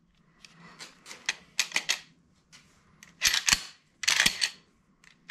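Remington 870 pump action being worked back and forth by its new Magpul forend, giving sharp metal clacks and clicks. A few single clicks come first, then two quick clusters of clacks about three and four seconds in.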